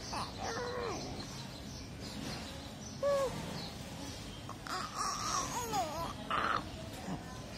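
A few short, soft baby coos with a rising and falling pitch, and harsh crow caws a little past the middle.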